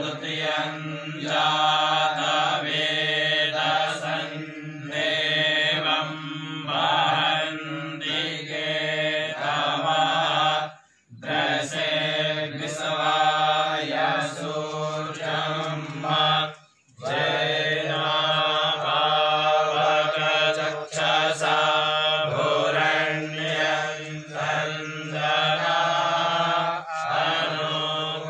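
Male chanting of Sanskrit mantras for a Vedic fire ritual, recited on a steady pitch in long phrases. It breaks off briefly for breath about 11 and 17 seconds in.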